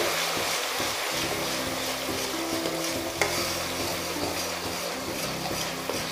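Ground onion paste sizzling in hot oil in a kadhai while a metal spoon stirs it, a steady frying hiss with one sharp click about three seconds in.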